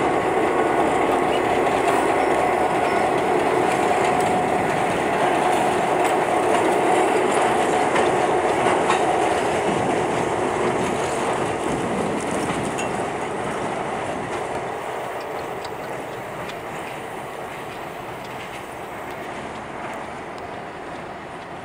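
Freight train rolling past, its wheels clattering over the rail joints with a faint steady squeal in the first half. It holds for about ten seconds, then fades steadily as the train moves away.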